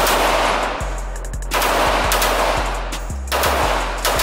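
Rapid pistol fire at an indoor range, the shots running together in dense stretches with short breaks, over background music with a steady low beat.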